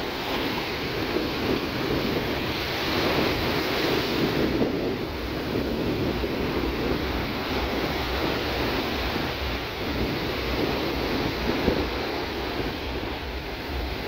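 Surf breaking and washing up a sandy beach, a steady rushing wash of waves, with some wind on the microphone.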